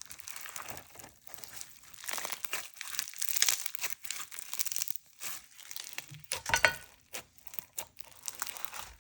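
Packed bingsu slime with a mini icy base being played with by hand, giving off rapid, uneven crackles in bursts.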